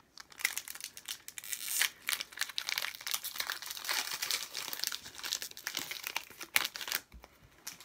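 Foil booster-pack wrapper crinkling and crackling as it is torn open by hand; the crackling stops about seven seconds in.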